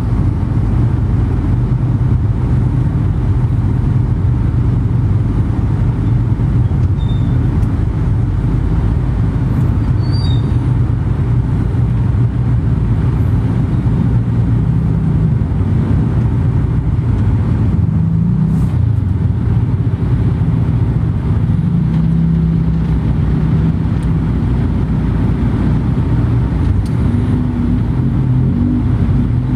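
Steady, continuous low rumble of a moving road vehicle, engine and road noise without change.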